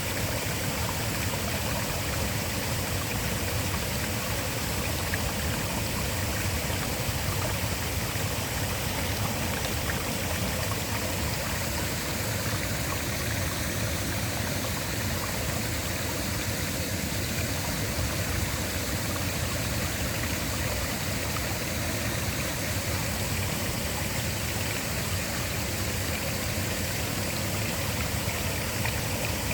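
Waterfall: falling water making a steady, even rushing noise that holds the same level throughout.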